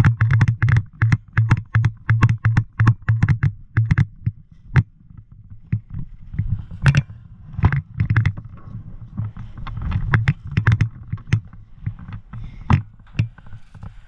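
Footsteps with gear knocking: about three quick steps a second for the first five seconds, then slower and irregular.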